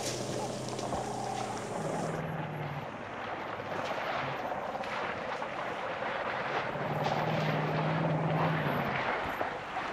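African elephants splashing and wading in a waterhole, the water sloshing and spraying in a continuous run of splashes. A low steady engine-like hum sounds at the start and again near the end.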